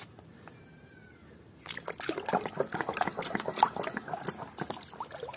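Hands splashing and sloshing in a plastic tub of muddy water, washing a plastic toy. It starts after a quiet second and a half, as a busy, irregular run of small splashes.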